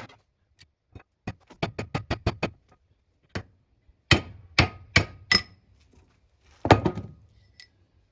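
Hammer blows on metal with a ringing tone, knocking the old bearing off the wood lathe's spindle, which is clamped in a vise. A quick run of lighter taps comes first, then four heavy blows about half a second apart, and one more heavy blow near the end.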